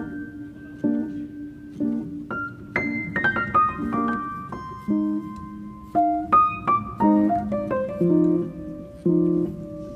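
Background piano music: a gentle melody of single notes and chords struck about once a second, with a quicker run of notes about three seconds in.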